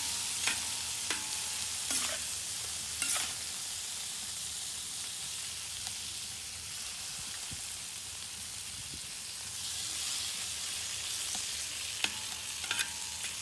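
Fajita beef with onions, peppers and salsa sizzling steadily as it fries in a pan, with a few short clicks and taps scattered through it.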